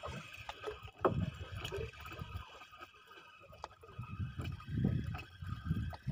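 Sea water lapping and sloshing against the side of a small wooden boat in soft, irregular swells, with a few faint clicks.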